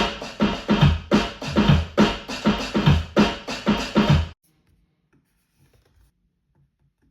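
Rhythmic music played on a child's instrument: repeated strokes, each with a low thump, about two to three a second, that stop abruptly a little over four seconds in.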